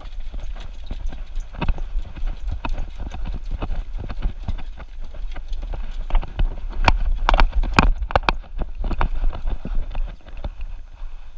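Irregular clicking and knocking from a camera mounted on a dog, jostling as the dog moves about, over a low rumble of movement on the microphone. The knocks come thickest about seven to eight seconds in.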